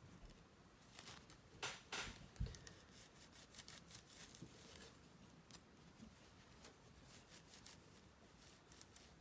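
Faint rubbing and scratching of a polishing cloth worked over a metal Sonic Screwdriver replica prop, with a few louder taps and clicks of handling about two seconds in.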